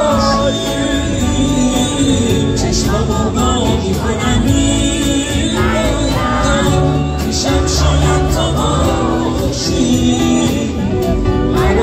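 Live performance of a Persian song: a male singer sings into a microphone, accompanied by a nylon-string acoustic guitar, heard through the concert PA.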